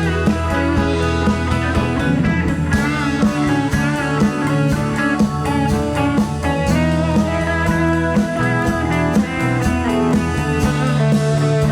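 Rock band playing in rehearsal: electric guitar over a drum kit, with steady beats.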